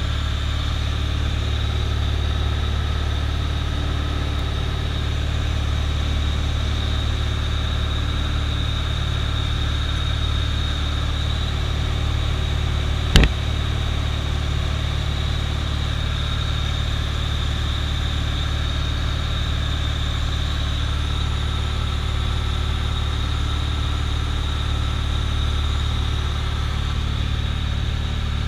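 Steady drone of a light single-engine piston plane's engine and propeller, heard from inside the cockpit in flight. One sharp knock about 13 seconds in.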